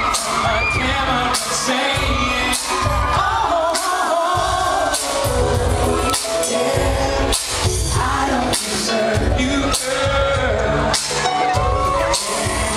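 Live pop music played over an arena PA: male boy-band vocals over a dance beat with heavy bass, heard from among the audience in a large hall.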